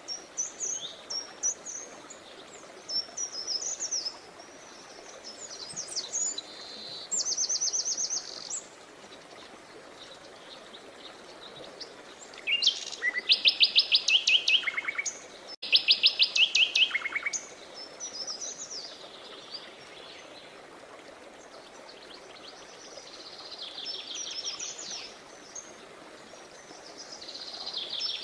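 Songbirds singing and calling over the steady rush of a stream. The loudest song, about halfway through, is a fast run of repeated high notes given twice in a row, with shorter phrases and twitters before and after.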